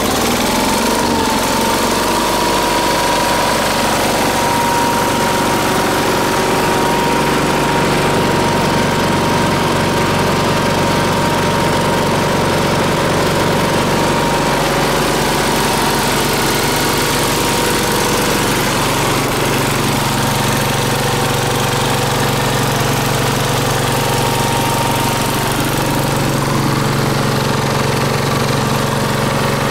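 Gasoline-engine air compressor running steadily, its engine and pump going at an even, constant speed.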